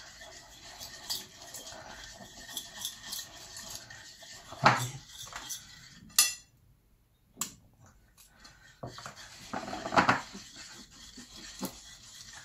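A small metal spoon stirring and scraping icing on a porcelain plate, clinking against the china, with a few louder knocks and a short silent break midway. The icing is being mixed with red and yellow food colouring to turn it orange.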